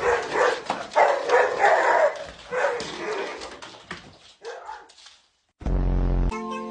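A dog barking in repeated short barks that grow fainter and die out about four seconds in. Near the end comes a brief loud low sound, then music begins.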